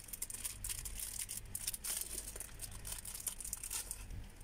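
Small plastic jewellery packaging crinkling and crackling in the fingers as a pair of earrings is unwrapped, in quick irregular crackles that thin out near the end.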